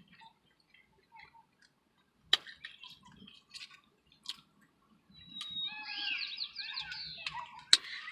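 Birds chirping in a quick run of short falling calls from about five seconds in. Scattered sharp clicks and taps come before it, and there is one loud click near the end.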